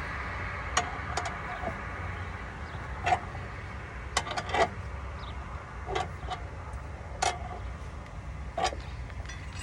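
Tire iron clanking on a car wheel's lug nuts as it is worked loose: about eight sharp metallic knocks at uneven intervals, over a steady background hum.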